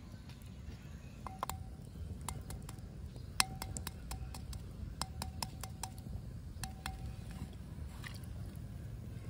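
Quail eggs being washed by hand in a water-filled terracotta pot, clicking against each other and the pot's rim in scattered taps, each followed by a short ring. The sharpest tap comes about three and a half seconds in.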